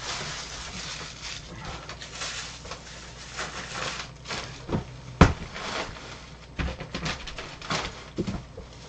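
Plastic packaging rustling and crinkling as the contents of a camera box are unwrapped, with a sharp click about five seconds in.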